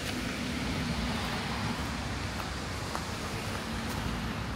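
Steady outdoor traffic noise, with a low hum in the first couple of seconds and a few faint clicks.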